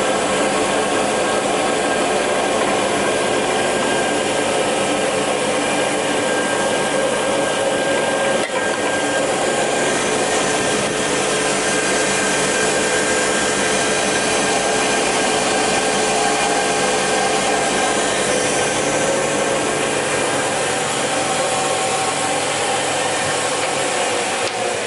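REMA DMLB 40 circular saw running steadily, with a brief dip about eight and a half seconds in. Near the end it is switched off and its pitch starts to fall as the blade spins down.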